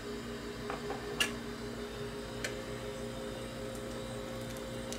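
Hot fat in a cast-iron frying pan spitting with a few sharp ticks and pops, over a steady low electrical hum.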